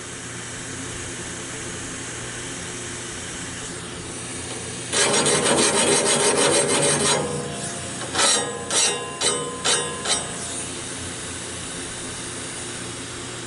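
Sharpening tool rasping against the teeth of a Wood-Mizer sawmill band blade: one long stroke of about two seconds, then four or five short quick strokes.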